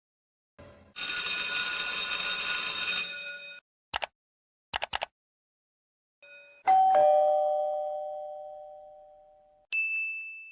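A run of separate sound effects. First a loud, steady buzzing ring lasting about two and a half seconds, then a few short clicks. Then an electronic two-tone ding-dong doorbell chime, a higher note and then a lower one, that rings out for about three seconds, followed near the end by a short high ding.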